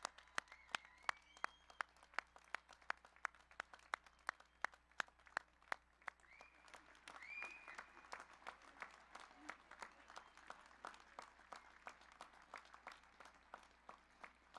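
Audience applauding, with sharp, distinct hand claps at about four a second that grow softer in the second half.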